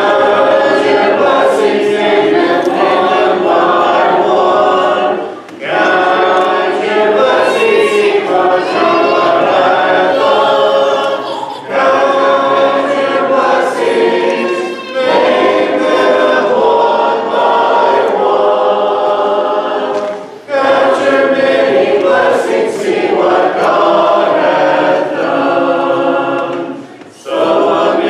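A church congregation singing a hymn a cappella, many mixed voices with no instruments. The singing comes in phrases of a few seconds, with brief breath pauses between lines.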